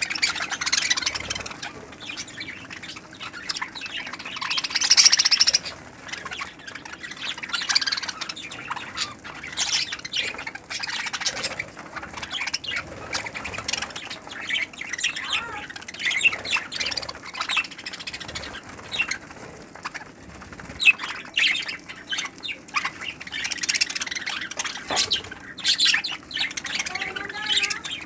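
A flock of budgerigars chattering continuously: a dense mix of chirps, warbles and squawks, loudest about five seconds in.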